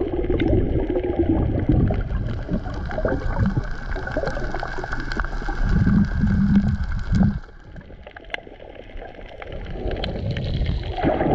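Muffled rushing and gurgling of water heard through a camera held underwater in a current, with scattered small clicks and crackles; it drops in level about seven and a half seconds in, then builds again near the end.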